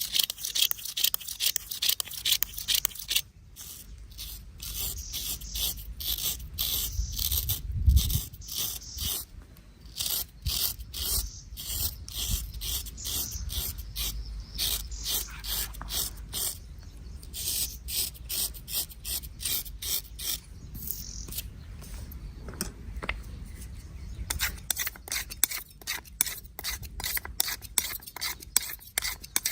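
A razor scraping hair and stubble off skin in quick, short, crisp strokes, several a second, with brief pauses between runs. There is a single low thump about a quarter of the way through.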